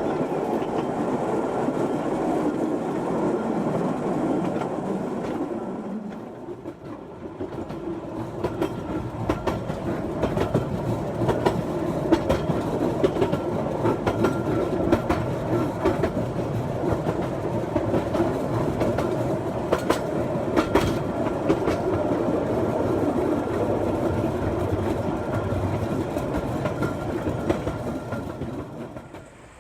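Small minimum-gauge park train running along its track with a steady rumble, its wheels clicking over the rail joints. The sound dips briefly about six seconds in and fades out at the very end.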